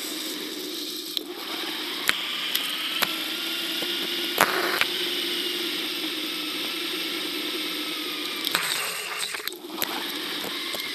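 Riding noise picked up by a camera mounted on a mountain bike's handlebar in town traffic: a steady mechanical rattle over road noise, with scattered sharp clicks and knocks, the loudest about four seconds in.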